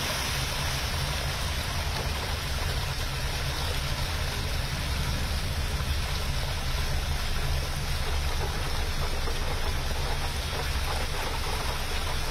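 Heavy rain pouring down steadily as a dense hiss, with a low rumble of traffic on a waterlogged road.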